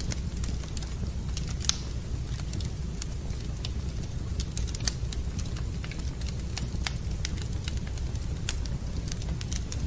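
Wood fire burning in a fireplace, crackling with irregular sharp pops over a low steady rumble; two louder pops come about two and five seconds in.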